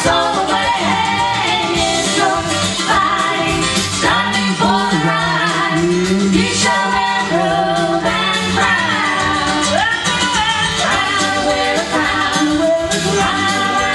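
Gospel vocal group singing with instrumental accompaniment.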